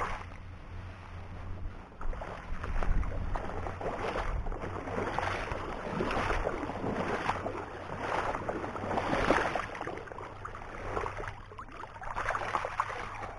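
Wading through shallow, weedy marsh water: repeated sloshing and splashing from each step, about one a second.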